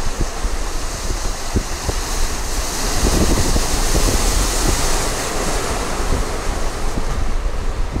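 Mediterranean surf breaking and washing among the rocks of a breakwater, a steady hiss that swells in the middle, with wind buffeting the microphone.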